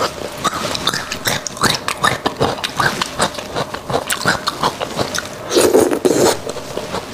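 Close-miked wet chewing and lip smacks on spicy braised beef bone marrow. Near the end comes a louder, longer slurp as marrow is sucked from a beef bone.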